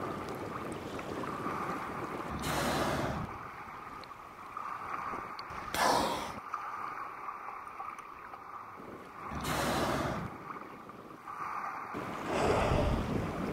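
Killer whale surfacing and blowing: four breathy whooshes, each about a second or less, spaced a few seconds apart over a steady wash of wind and water.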